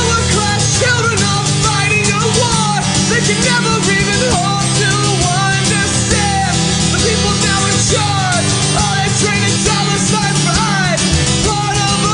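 Rock band playing a punk-leaning rock song: guitars over steady bass and drums, with a melody line sliding up and down in pitch.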